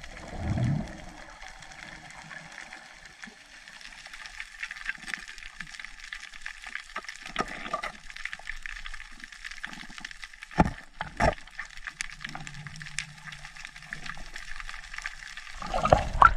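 Water sounds picked up by a diver's camera while swimming: a steady crackling hiss with a gurgle in the first second, and two sharp knocks about ten and eleven seconds in.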